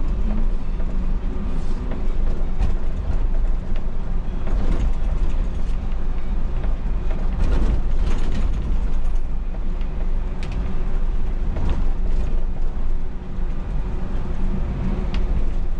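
Inside the cab of a moving MAN Lion's City city bus: a steady low rumble from the running bus, with frequent short creaks and rattles from its interior fittings.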